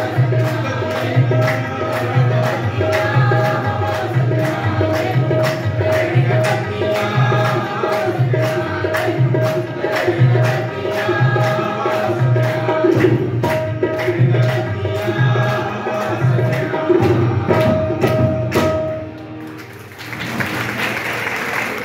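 Qawwali music: tabla playing a steady rhythm under group singing, a harmonium's held note and hand-clapping. The music stops about nineteen seconds in, and a short stretch of noise follows.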